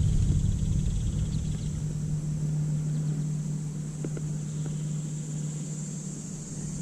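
A steady low hum, like a motor running at a distance, under a steady high hiss.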